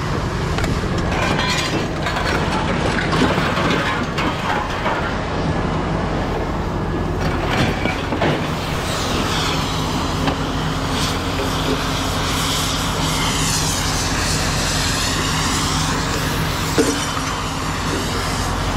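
A vehicle engine running steadily, with a few scattered metal clanks in the first half and a passing whoosh that swells and fades in the middle.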